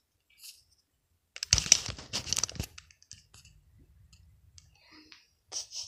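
Handling noise: a burst of clicks and crinkling from objects being moved about on a table, about a second and a half in and lasting about a second, then faint rustling.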